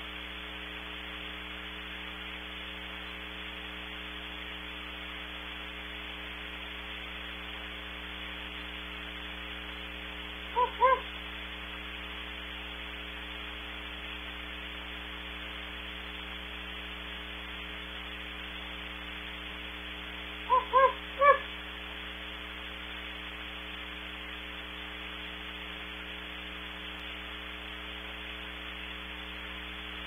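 Very distant great horned owls hooting, boosted and distorted in processing: two short hoots about 11 seconds in and three about 21 seconds in. A steady hiss and electrical hum run underneath.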